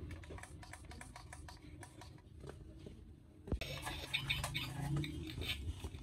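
Remote-control stunt car with roller wheels on a tile floor: light clicking and ticking, a sharp knock about three and a half seconds in, then its small electric drive motors whirring as the car starts to move.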